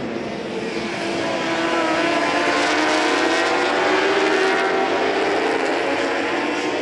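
A pack of endurance-racing superbikes at high revs, several engines at once, getting louder as they approach, peaking about four seconds in and then fading.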